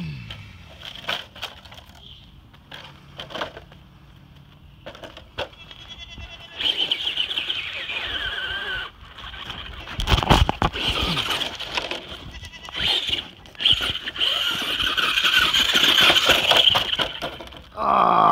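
Traxxas Rustler RC truck's electric motor and drivetrain whining under throttle, its pitch wavering, in two long stretches, with a burst of loud knocks about ten seconds in. Near the end the truck lies upside down and its whine falls steeply in pitch as the wheels spin down.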